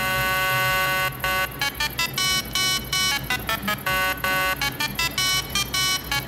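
Electronic dance music: a held synth chord that breaks about a second in into a fast, stuttering on-off synth pattern.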